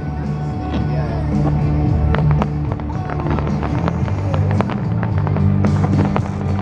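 Music playing loudly, mixed with a rapid string of fireworks cracks and pops.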